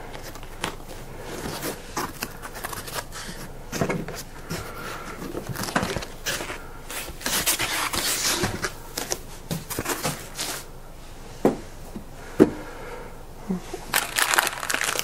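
Foam packing sheet being lifted and slid out of a cardboard box, rustling and scraping irregularly, with a couple of sharp knocks. Near the end, plastic bags crinkle as they are handled.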